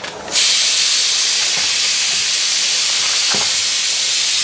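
Kitchen tap water running hard and steadily into a plastic bowl already full of water, for rinsing vegetables. The flow starts suddenly about a third of a second in.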